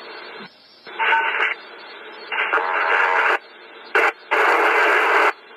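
Police scanner radio static: three bursts of hiss, each up to about a second long, plus one short blip, as transmissions key up without intelligible words, over a lower steady background hiss.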